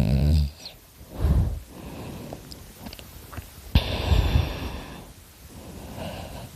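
Snoring of a sleeper: slow, heavy breaths about every one to two seconds, the loudest starting suddenly about four seconds in.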